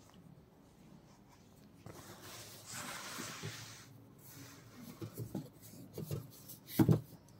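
Metal spatula stirring chopped fava-bean pods in an aluminium kadhai, scraping against the pan for a couple of seconds. Several light knocks follow, then a louder clunk near the end.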